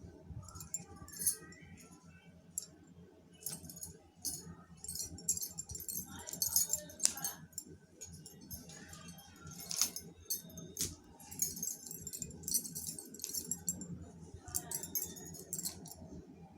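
Light, high-pitched jingling of small hard objects in short, irregular bursts, stopping and starting throughout, over a faint steady hum.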